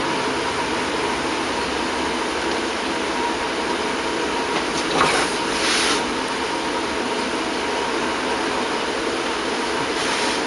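Steady rushing hum of a room fan or air conditioner, with a faint steady tone in it. Two short hisses stand out about five and six seconds in.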